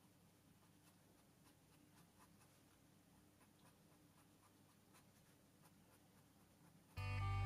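Faint scratching and tapping of a felt-tip pen colouring on sketchbook paper, in short irregular strokes. Guitar music starts loudly near the end.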